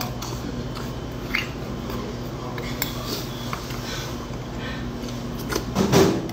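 Eating at the table: a metal spoon clicking and scraping against a stainless rice bowl and a soup bowl as rice is spooned into pork soup, with mouth sounds of eating. A louder burst of noise comes near the end.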